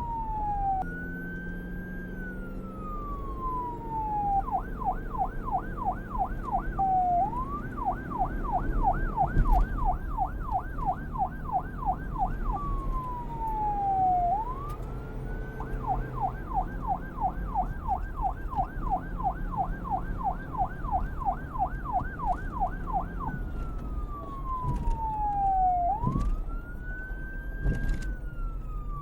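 Police car siren alternating between a slow wail, which climbs quickly and falls over about two seconds, and a fast yelp of several sweeps a second. It switches back and forth repeatedly, over a low traffic rumble.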